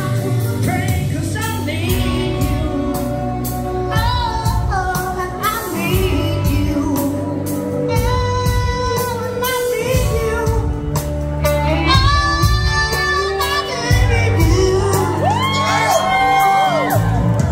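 A live ska-punk band playing a song, with drums, bass and sung vocals, recorded from within the audience in a large hall.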